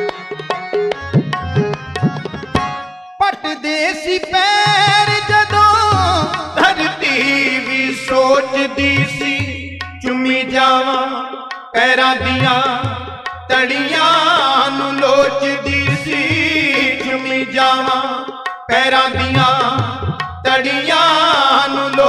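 Harmonium melody over tabla, a kirtan instrumental interlude. The fuller melody enters about three seconds in.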